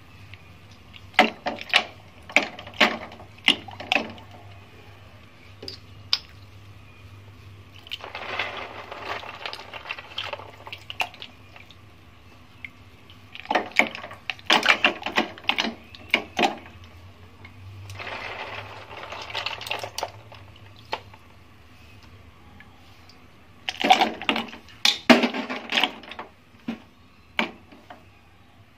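Snail shells clattering against each other and the steel pot as a hand stirs and scoops them in water, in three bouts of rapid clicks, with water swishing in between. A low steady hum runs underneath.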